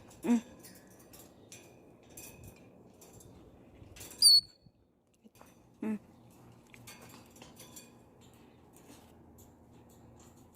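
Birds chirping in short, high, scattered notes, with one loud, shrill call about four seconds in. Two brief low sounds, one near the start and one about six seconds in.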